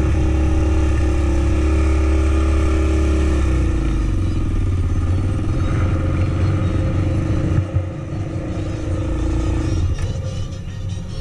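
Quad (ATV) engine running close by, easing off about three and a half seconds in as the quad slows, then running at a lower, steadier pitch and growing quieter in the last second or so.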